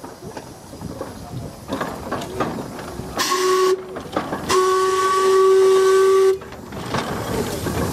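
Steam Elephant replica locomotive's steam whistle blowing: a short blast, then a longer, louder one, a chord of several tones, over the locomotive's running noise.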